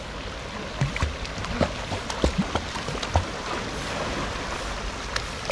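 Boston terrier paddling in a swimming pool: a run of short splashes and slaps in the first three seconds or so and one more near the end, over a steady rush of running water.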